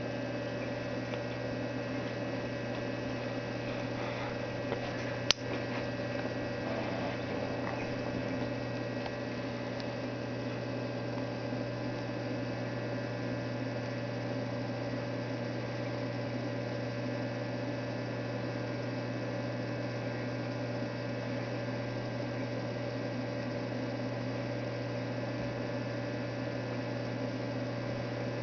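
Steady electrical hum of a small aquarium's equipment, such as its pump, unchanging throughout. A single sharp click stands out about five seconds in.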